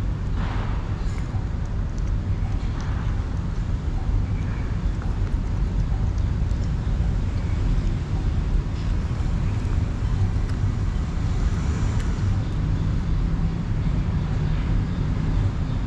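Steady low rumble of traffic, with faint wet chewing and smacking from a cat eating chunks of wet cat food close by.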